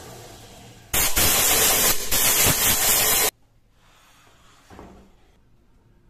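A loud, steady hiss starts about a second in and cuts off abruptly a little over two seconds later. Before it, the wood lathe runs faintly; after it comes a single soft knock.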